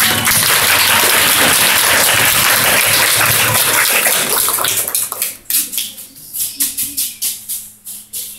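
Audience applauding, thinning out about five seconds in into scattered single claps that fade.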